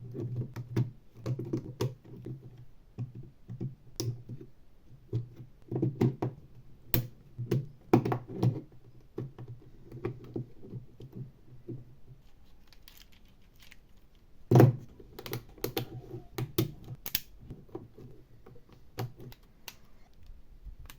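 LEGO Technic plastic parts being handled and snapped together: irregular small clicks and knocks, with one louder knock a little past halfway.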